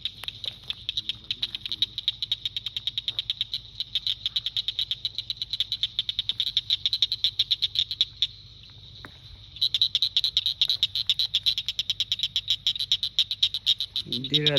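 Frog calling in a fast train of rapid, high, clicking pulses, several a second. It stops about eight seconds in, then starts again a second and a half later.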